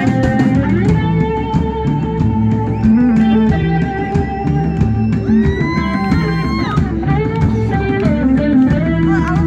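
Live rock band playing an instrumental passage: electric guitar over electric bass and a drum kit, with a guitar note bent up and held for about a second a little past halfway.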